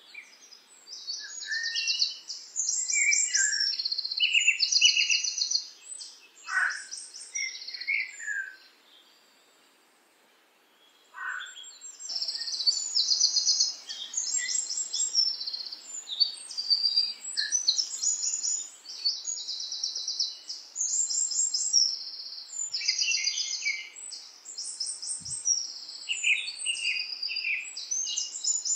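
Songbirds singing: fast, repeated high trills and chirps, with a pause of a couple of seconds about a third of the way in.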